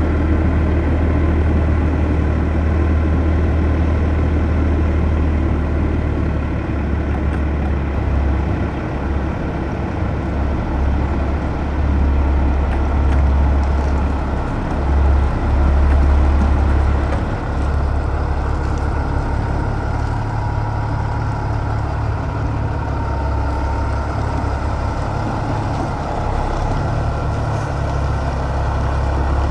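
650-horsepower Caterpillar diesel engine of a Peterbilt 379 running at low revs while manoeuvring a trailer at walking pace, with a steady low drone that picks up a little about halfway through.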